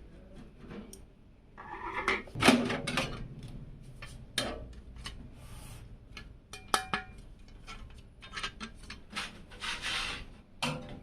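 Hands working with computer parts and a steel PC case: irregular clicks, knocks and rubbing, with a few short metallic clinks that ring briefly. The loudest clatter comes about two and a half seconds in.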